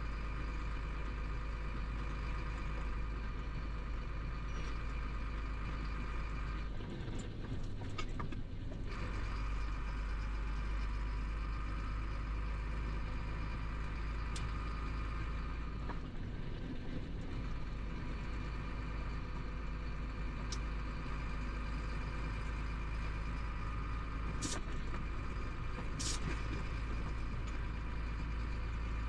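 Chenglong 375 truck's diesel engine running steadily, heard from inside the cab while driving, with a deep continuous drone that changes briefly twice. A couple of short clicks sound near the end.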